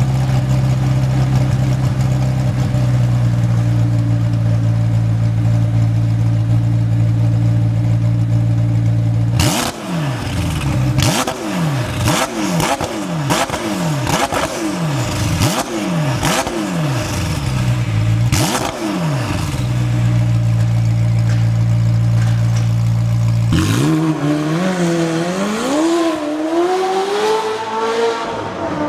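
McLaren 720S twin-turbo V8 through an Fi valvetronic exhaust: a steady idle, then a run of quick throttle blips, each rising and falling, with sharp cracks in between, before settling back to idle. About 24 s in it pulls away, the pitch climbing and dipping through upshifts.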